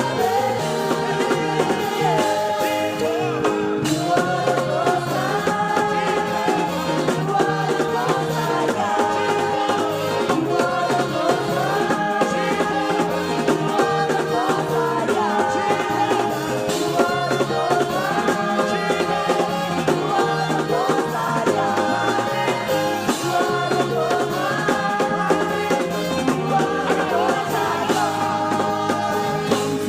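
Upbeat gospel praise music: singing over a continuous beat of drums and percussion.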